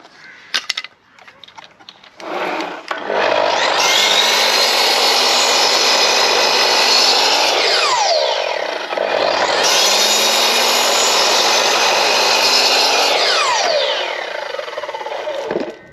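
Electric circular saw with a freshly sharpened blade, cutting wood twice. Each time it spins up, runs steadily for about five seconds, then winds down with a falling whine.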